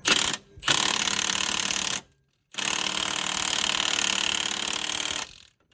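Milwaukee cordless impact wrench hammering the crankshaft balancer bolt tight, in three bursts: a brief one, one of about a second and a half, then a longer one of nearly three seconds.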